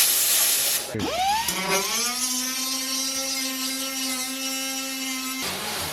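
Short burst of hissing noise, then about a second in a handheld power tool's motor spins up with a rising whine and runs at one steady pitch, cutting off suddenly near the end.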